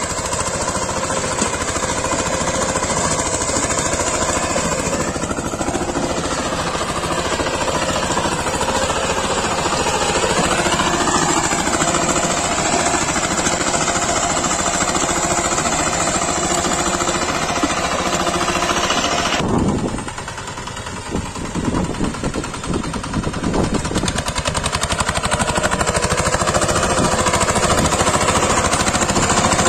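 VST Shakti 130 DI power tiller's single-cylinder diesel engine running under load as its rotary tines till the soil, with a fast, even beat. About two-thirds of the way in the sound cuts suddenly to a quieter, uneven stretch, then builds back up.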